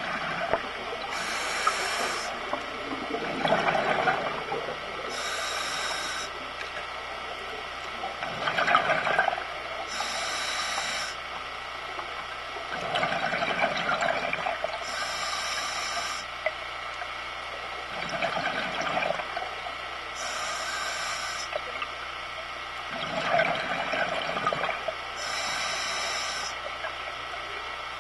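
Scuba regulator breathing underwater: about every five seconds a hiss of inhaled air through the demand valve, followed by a burst of exhaled bubbles, six breaths in all.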